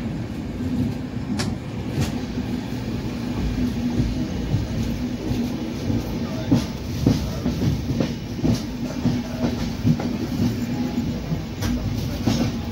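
Train running along the track: a steady rumble and hum with wheels clacking and knocking over the rail joints at irregular intervals.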